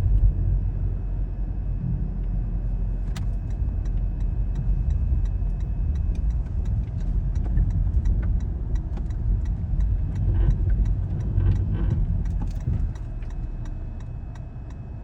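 Snowcat (tracked snow groomer) running close by, a steady low engine rumble with faint regular ticking about three times a second.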